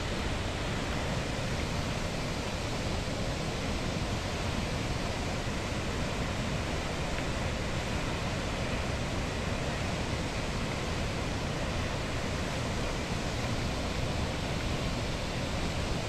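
Steady rushing of a waterfall and river water, an even noise that holds unchanged throughout.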